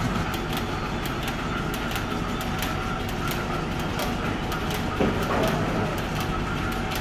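Machinery running steadily with a low hum and a rapid clicking, about three clicks a second, with a brief louder swell about five seconds in.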